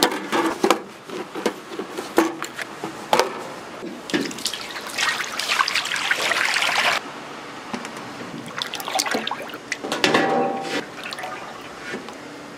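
Water running and splashing, with scattered clatter and knocks of handling; the running water cuts off abruptly about seven seconds in.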